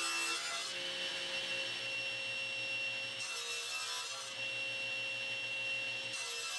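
Table saw running with a steady whine as a crosscut sled carries a glued-up maple panel through the blade. The blade cutting through the wood adds a rougher, noisier sound three times: briefly at the start, about three and a half seconds in, and again at the end.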